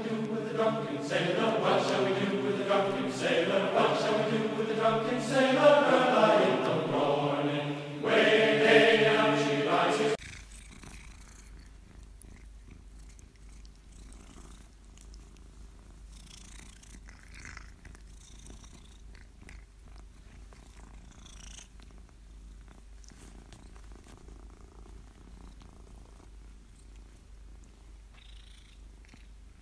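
A domestic cat yowling in long, drawn-out, wavering meows that stop abruptly about ten seconds in. Then comes soft, steady purring from a cat being stroked up close.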